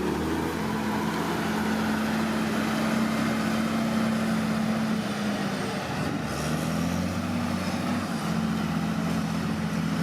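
Bulldozer's diesel engine running steadily under work, its note easing briefly about halfway through and then picking up again.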